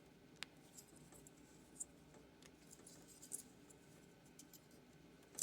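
Near silence with faint, scattered small plastic clicks and scratches as the wire connector is worked at, trying to pull it off a washing machine's water level pressure switch.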